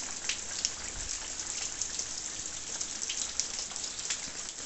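Steady rain falling, an even hiss with many separate drop hits ticking through it.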